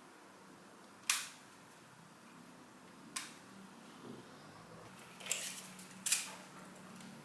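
Forward/reverse control switch on a Milwaukee M12 2462-20 impact driver being pushed from side to side: four sharp clicks, spaced unevenly over several seconds.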